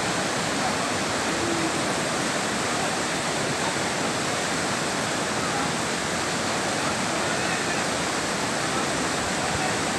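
Waterfall rushing steadily. The flow is running high, swollen by the previous day's rain.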